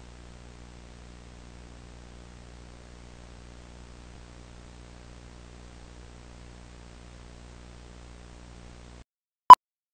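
Steady low mains hum with faint static hiss, cutting off about nine seconds in. Near the end comes a single short, loud beep from a broadcast countdown clock.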